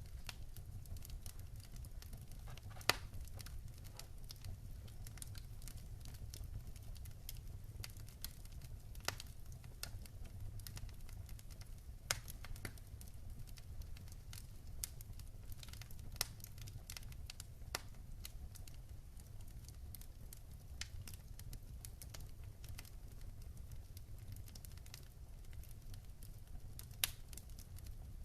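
Wood fire in a fire pit burning and crackling: irregular sharp pops and snaps over a low steady rumble, with a few louder pops about 3 seconds in, about 12 seconds in and near the end.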